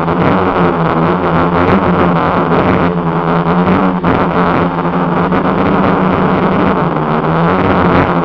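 Quadcopter's electric motors and propellers running right beside the onboard camera's microphone: a loud, steady hum holding one pitch over a dense rushing whir.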